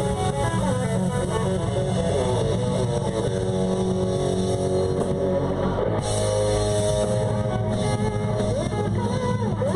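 Live band playing an instrumental passage led by guitar, over a steady bass line.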